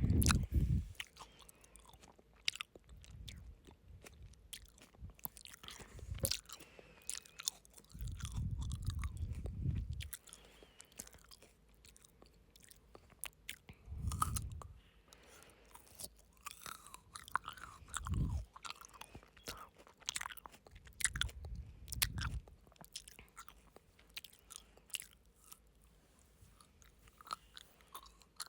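Close-miked chewing of frozen grapes: sharp, crackling crunches throughout, with several low puffs of breath hitting the microphone, the longest about 8 seconds in.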